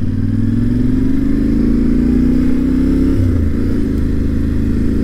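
Yamaha Ténéré 700's parallel-twin engine running under way, its note rising slowly for about three seconds, then dropping and holding steady, with constant wind and road noise.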